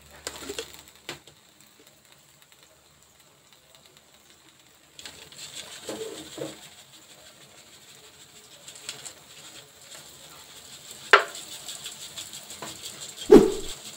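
A dove cooing a few short low notes. A steady hiss comes in about five seconds in, and there is a sharp click shortly before the last, loudest coo.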